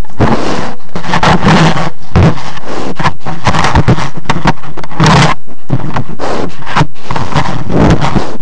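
A large wild animal sniffing and snuffling right at a trail camera's microphone. The rapid, irregular sniffs and scrapes follow one another a few times a second and are very loud.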